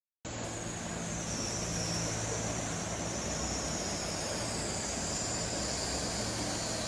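Floodwater rushing along a flooded pavement and street, a steady hiss of running water, with a low hum under it for the first few seconds. It cuts in after a brief moment of silence.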